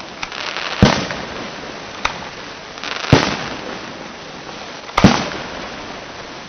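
Aerial firework shells bursting: three loud bangs about two seconds apart, with a quieter pop between the first two. The last bang near the end is a quick double bang, and each bang rolls off in a short echoing tail.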